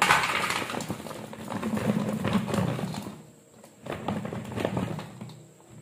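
Cut raw mango pieces tumbling out of a jar into a basket, clattering and rustling in three spells.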